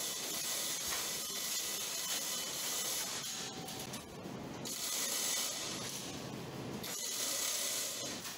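Gantry-mounted chain hoist ratcheting and rattling as its chain is pulled, lifting a car body under load.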